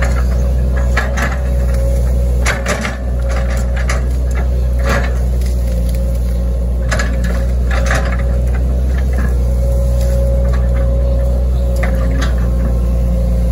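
Hitachi ZX110 excavator's diesel engine running steadily under load, with a steady whine over the low drone. Irregular knocks and scrapes come every second or two as the steel bucket digs and drags through grassy soil.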